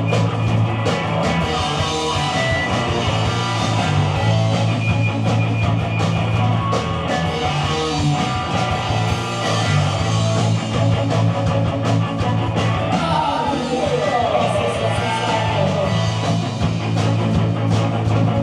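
Rock band playing live: electric guitars and a drum kit.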